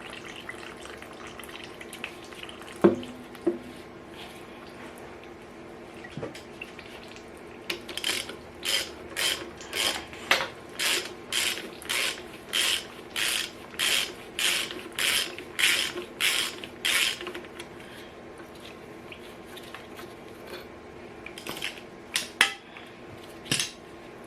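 Hand ratchet wrench clicking in a steady run of short back-strokes, about two a second for roughly ten seconds, with a couple of metal knocks a few seconds before it.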